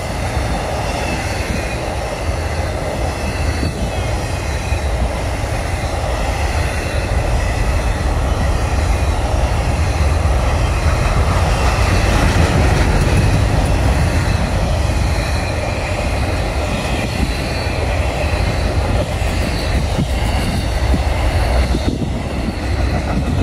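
Long freight train rolling past: a steady, loud rumble of wheels on rail, with a faint high wheel squeal over it.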